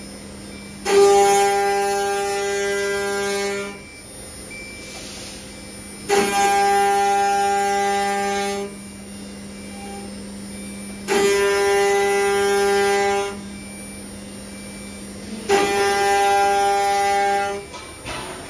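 Multi-spindle CNC router carving wooden blanks on rotary axes. A loud whine from the spindles' cutters biting into the wood comes in bouts of about two seconds, roughly every five seconds, over a steady lower machine hum between the bouts.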